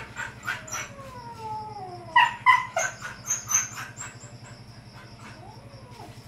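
A pet animal's cries: a long whining call falling in pitch, two short sharp cries just after, and a brief rising-then-falling call near the end, over a steady low hum.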